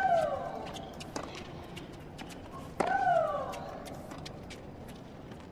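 Tennis rally: a racket strikes the ball hard twice, about three seconds apart, each hit followed at once by a player's loud shriek that falls in pitch, with a fainter ball hit or bounce between them.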